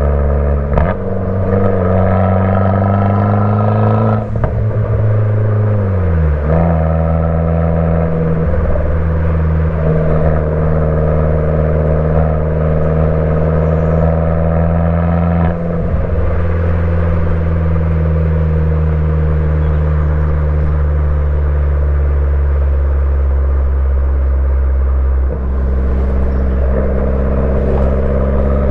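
Fiat 500 Abarth's turbocharged 1.4-litre four-cylinder engine through an MPx cat-back exhaust, on the move. The revs climb for a few seconds, drop sharply about four to six seconds in with a lift-off or gear change, then hold a steady drone while cruising.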